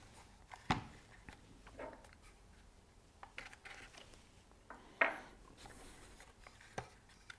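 A few light clicks and knocks from handling a Smith & Wesson M&P15-22 polymer rifle as its front takedown pin is pushed out to separate the upper from the lower receiver. The loudest click comes about five seconds in.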